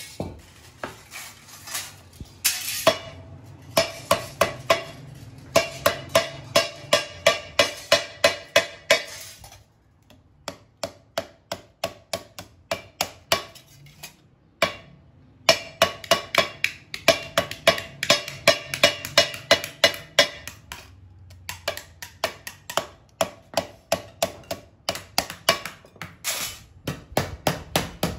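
Wooden mallet striking thin sheet-steel cone moulds over a steel rod mandrel, hammering them to shape. Quick rhythmic blows, about three a second, each with a metallic ring. There is a lull of lighter, sparser taps near the middle before the steady hammering resumes.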